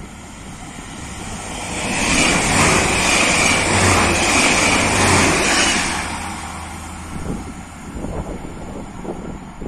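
Red regional multiple-unit train passing close by at speed. The rumble and rail noise build up, peak for a few seconds with a steady high whine over a low hum, then fade as the train runs away, with a few wheel clatters near the end.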